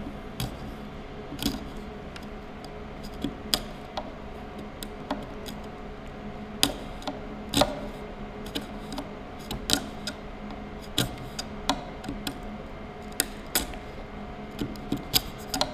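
A 12 mm bench chisel pushed by hand, paring small chips out of a sawn trench across a timber board: irregular sharp ticks and cracks as each chip breaks away, over a low steady hum.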